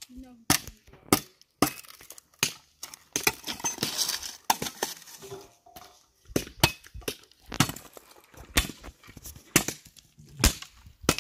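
Machete blade chopping into a thin wooden sapling pole: about a dozen sharp chops, roughly one a second, with a stretch of rougher noise between blows a few seconds in.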